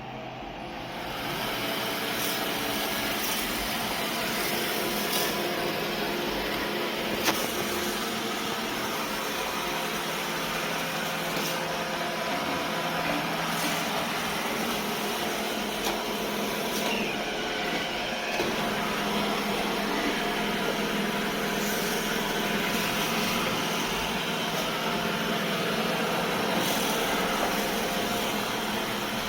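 A robot vacuum's motor spinning up and then running steadily, with a few faint clicks.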